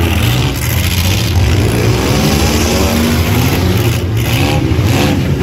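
Several demolition derby vehicles' engines running loud together, revving so that their pitch rises and falls repeatedly through the second half.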